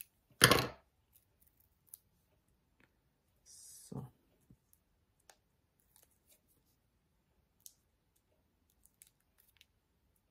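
Scissors cutting foam tape: one loud snip about half a second in, then a brief high hiss and faint scattered ticks and rustles as the small tape pieces are handled.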